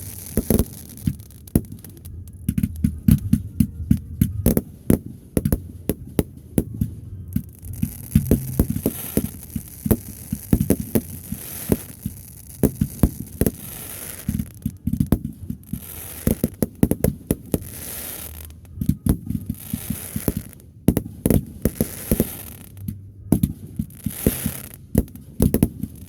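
Fireworks display: a dense, irregular string of low booms and sharp pops, several a second.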